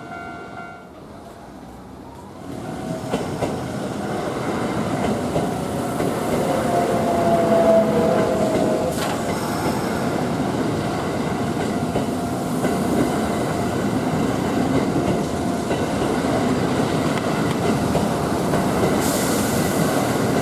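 An electric train passing over a level crossing close by, its wheels clattering over the rail joints, with a whine or light wheel squeal that is strongest about six to eight seconds in. It comes in loud about two and a half seconds in and stays loud.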